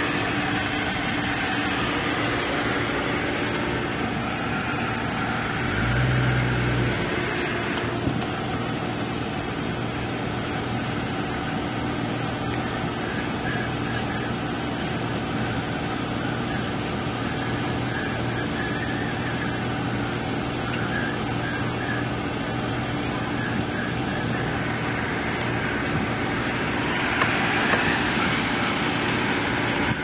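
Car engine and road noise heard from inside the cabin while driving slowly, a steady hum. About six seconds in there is a brief, louder low rumble.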